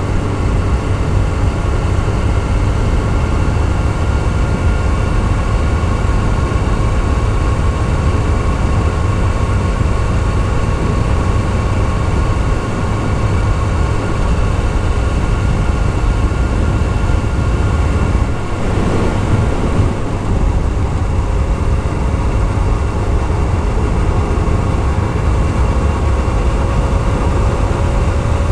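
Yamaha YZF-R6S sport bike's inline-four engine running at steady cruising revs, under heavy wind rumble on the microphone.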